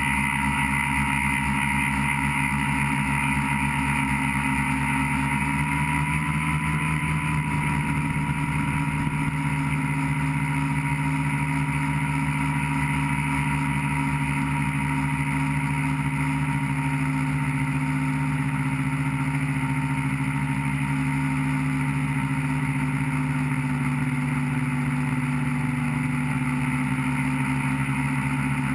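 Electric motors and propellers of a tricopter whirring steadily in flight, picked up by its onboard GoPro camera. The pitch shifts briefly about six seconds in.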